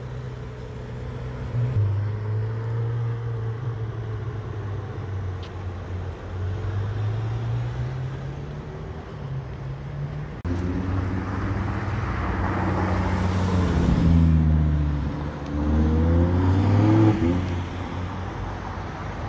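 Supercar engines in city traffic. First a low, steady engine note as a Ferrari moves off. Then, after an abrupt change about halfway through, a louder engine revving, with its pitch rising and falling several times and loudest near the end.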